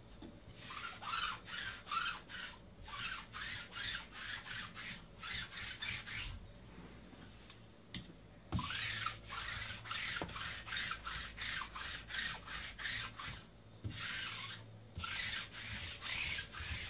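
Rapid, even rubbing or scraping strokes, about three a second, in three runs of several seconds with short pauses between them.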